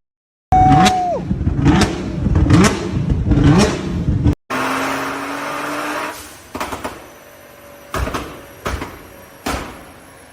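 Modified Nissan GT-R's twin-turbo V6 blipped through a custom exhaust, revving up about four times in quick succession with sharp cracks among the revs. After a break, a steadier engine sound dies away and is followed by four sharp exhaust pops about a second apart.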